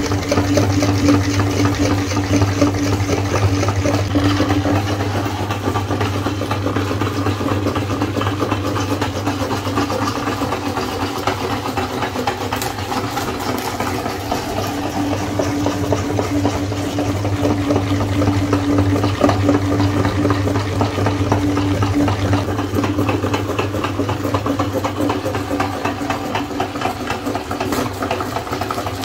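Electric meat grinder running steadily as it grinds ice cream bars: a constant motor hum with a fine, rapid chatter over it.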